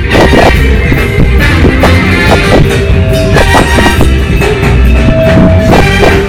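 Live funk band playing loudly, with a steady drum beat.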